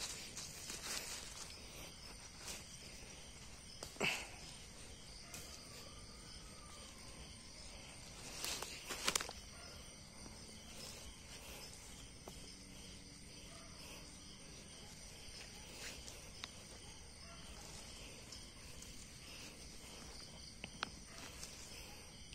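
Faint steady chirring of night insects, with a few brief rustles of dry leaves and soil, the loudest about four seconds in and around nine seconds in, as hands work through the leaf litter picking mushrooms.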